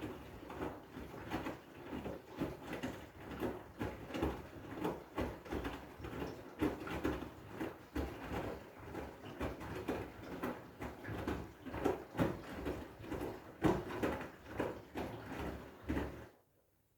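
Washing machine drum tumbling a load of wet blankets, with a repeated sloshing thud about twice a second. It cuts off suddenly near the end.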